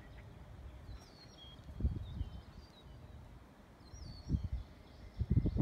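Outdoor ambience: small birds chirping now and then, with a few brief low rumbles.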